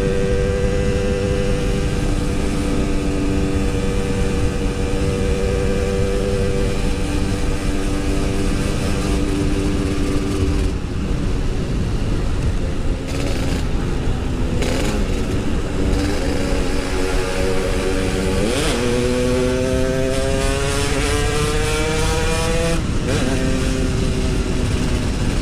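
Yamaha RX-King 135cc single-cylinder two-stroke motorcycle engine running under way at steady revs, then easing off about ten seconds in. About eighteen seconds in it revs up in a steep rising climb, and near the end the revs drop briefly and climb again.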